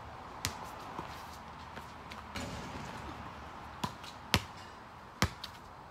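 A basketball bouncing on an asphalt driveway: a handful of separate sharp bounces, two close together about four seconds in, over a faint steady outdoor hiss.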